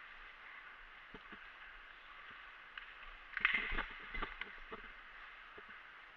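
Rustling and scattered clicks over a steady high hiss, with a louder burst of rustling and knocks a little past halfway.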